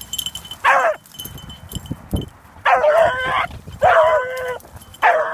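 Hunting beagles baying in the brush: a short yelp, then two longer drawn-out bawls, then another cry near the end, as hounds give voice while running a rabbit's scent. Brush rustles between the calls.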